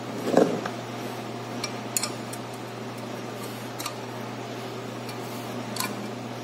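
Light metallic clinks and clicks of hand tools on metal parts, one louder knock about half a second in and a few sharp ticks spaced a couple of seconds apart, over a steady low hum.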